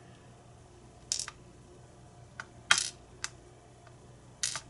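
Small brass lock pins and springs being set down one by one on a pinning tray as a pin-tumbler lock is disassembled: about five short, sharp clicks at uneven intervals, the loudest about halfway through.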